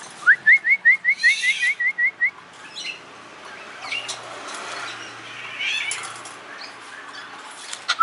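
Caged blue magpie calling: a quick run of about ten short rising notes, about five a second, lasting two seconds. Scattered scratchy rustling noises follow, and a new run of the same notes starts at the very end.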